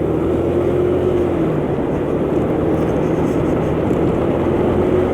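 125cc motor scooter's engine running steadily as the bike rides along, with a steady rush of wind and road noise.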